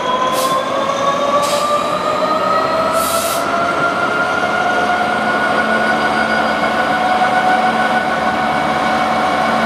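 Class 66 diesel-electric freight locomotive, with its two-stroke V12 engine, passing slowly at close range with its wagons: a loud steady run with a whine that slowly rises in pitch as it goes. Three short hisses come in the first three seconds or so.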